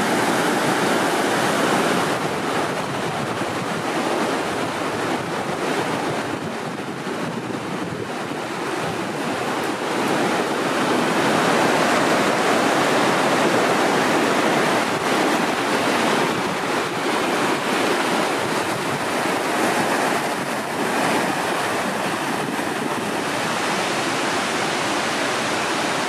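Tinker's Creek rushing over rocks in shallow rapids: a steady, loud rush of moving water.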